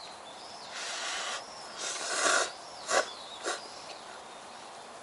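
A person slurping hot tonkotsu ramen noodles: a few breathy slurps, the loudest about two seconds in, then two short ones. Faint bird chirps sound in the background.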